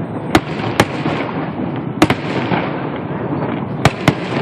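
Aerial fireworks shells bursting: five sharp bangs, the last two close together near the end, over a constant noisy background from the show.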